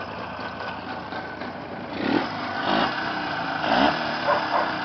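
Freshly repaired engine running. About two seconds in it is revved in several short blips, rising in pitch each time, while it is being run in.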